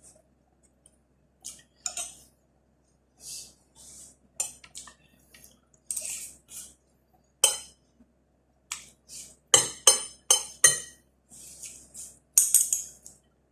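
Eating utensils clinking and scraping against a plate or bowl in short, irregular strokes as food is mixed and eaten, with a run of sharper clinks about two-thirds of the way through.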